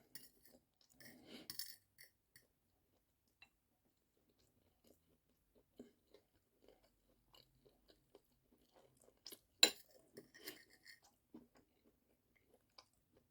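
A person chewing a mouthful of cooked bulgur, quietly, with faint scattered clicks and one sharper click about two-thirds of the way through.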